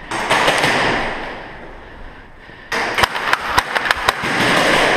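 Airsoft gunfire: a rapid string of about a dozen sharp cracks and clicks over a second and a half, starting a little before the middle, between bursts of rushing noise that start suddenly and die away.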